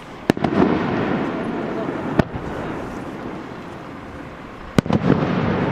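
Aerial fireworks shells bursting: three sharp bangs, each a couple of seconds apart, the first and last trailed by crackling.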